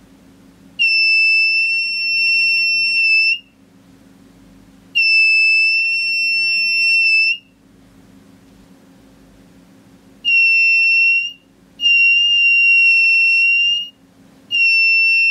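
Piezo buzzer on a simple coil metal-detector circuit giving a steady, high-pitched beep whenever the search coil is over metal. It sounds five times, each beep lasting one to two and a half seconds with short gaps between; the last one is still going at the end.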